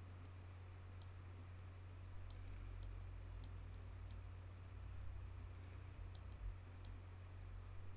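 Computer mouse button clicking about seven times at irregular intervals, short sharp clicks, over a steady low electrical hum.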